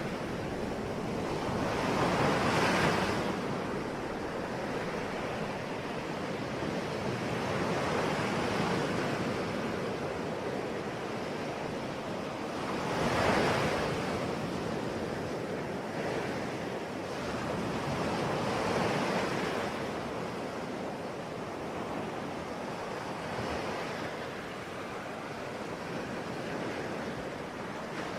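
Ocean surf: waves breaking and washing in, swelling and falling away about every five seconds. The loudest breaks come about two and a half and thirteen seconds in.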